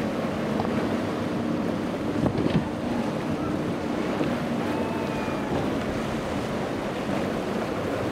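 Three Yamaha 350 V8 outboard motors on a Grady-White running steadily at speed, mixed with the rush of water and spray off the hull and wind on the microphone.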